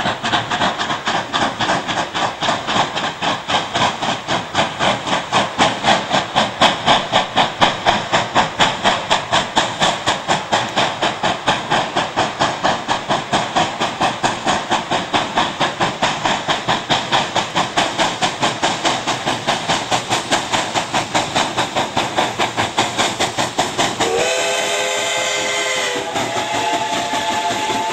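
Two steam locomotives double-heading a passenger train work hard on the approach, with rapid, even exhaust chuffs. About four seconds before the end a steam whistle sounds, and a second, higher whistle tone follows about two seconds later and carries on.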